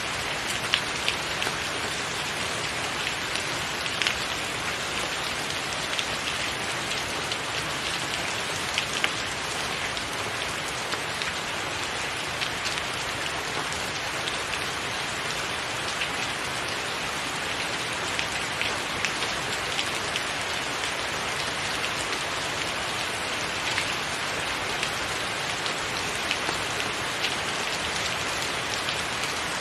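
Steady rain: a dense, even hiss with frequent sharper drops ticking through it.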